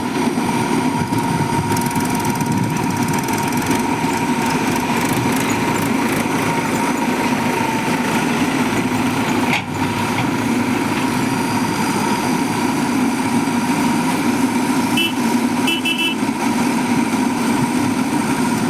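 Diesel engine of a Mahindra backhoe loader running steadily under a constant whine, with a few short high beeps about fifteen seconds in and again near the end.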